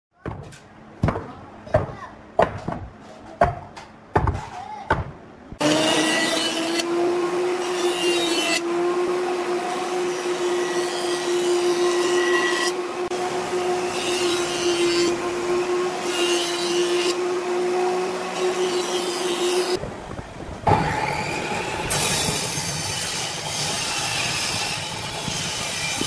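A quick series of sharp knocks, then a jointer running steadily and planing a rough pine board. After a short break near the end, a table saw starts running.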